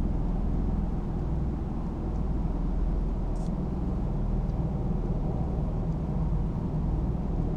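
A steady, heavy, low rumble from an unidentified source, sounding sort of like a heavy helicopter trying to take off; it holds level without a break.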